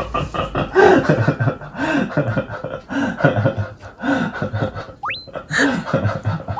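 Short laugh-like gasps repeating about once a second, then a rising whistle-like sweep near the end.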